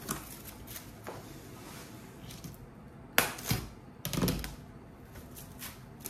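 Plastic cling film crinkling and rustling as it is wrapped around a glass baking dish, with light clicks throughout, a sharp knock about three seconds in and another clatter about a second later.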